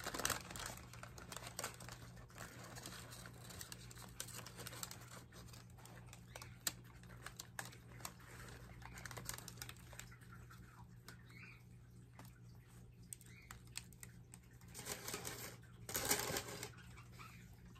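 Paper wrapping rustling and crinkling as hands unwrap small plants, with many small clicks and taps, and two louder rustles near the end as the paper is pulled off a plant.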